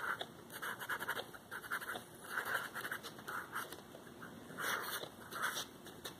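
Wooden pencil drawing on a sheet of paper: a run of short scratching strokes at an uneven pace.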